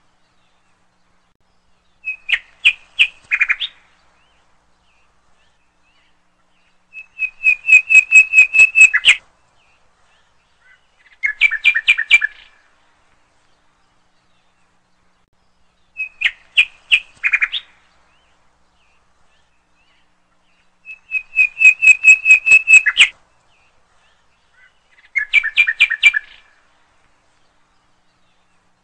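A bird calling in bursts of rapid, repeated chirps, six bursts each lasting a second or two, with silent gaps between them.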